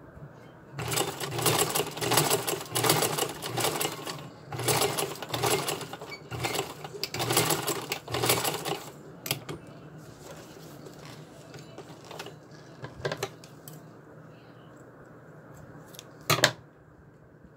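Vintage sewing machine stitching through a ribbon-covered collar strap, running in three spells of fast, even chatter with short stops between. Several scattered clicks follow, and one sharp, loud click comes near the end.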